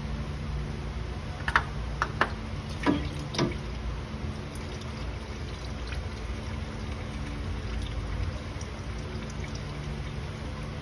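Used engine oil pouring and trickling from a just-removed spin-on oil filter into a drain pan, over a steady low hum. Four sharp clicks come between about one and a half and three and a half seconds in, as the filter is twisted loose.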